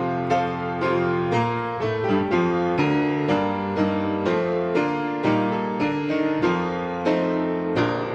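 Piano music: single notes struck about twice a second over held lower notes, at an even pace.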